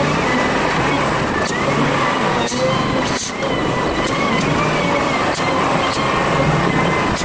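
Volvo BM 4300 wheel loader's diesel engine and hydraulics working, sped up five times, so that it sounds as a dense, high drone whose pitch wavers up and down as the load changes. A few short knocks come through it.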